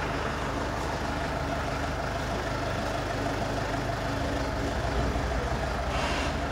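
Engine of a parked minibus idling with a steady low rumble.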